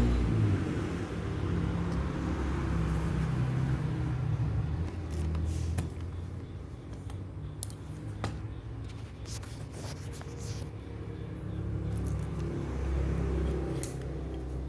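A motor vehicle engine rumbling low and steady in the background, with scattered small sharp clicks and taps from about five seconds in.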